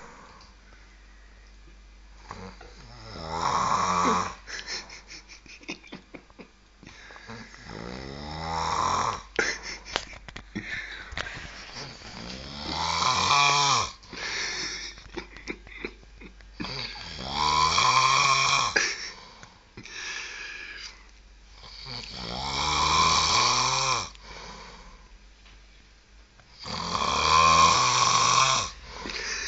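A man snoring heavily, with six long snores about one every five seconds and faint clicks in the quieter breaths between them.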